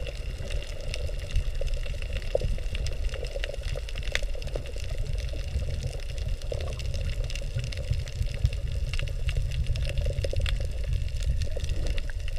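Underwater sound picked up by a submerged camera: a steady low rumble of moving water with scattered sharp clicks and crackles throughout.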